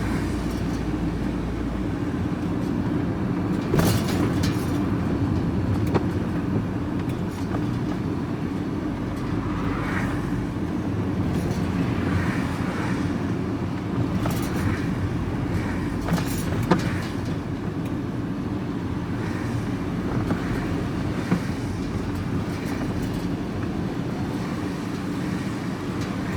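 Engine and road noise heard inside a vehicle's cab while it drives along: a steady low hum, with a few sharp knocks and rattles.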